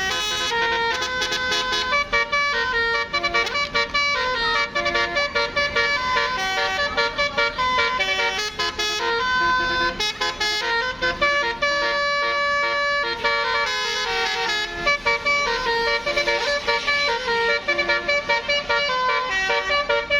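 Bus 'telolet' Basuri multi-tone horn playing a fast melody, one short or held horn note after another with brief breaks.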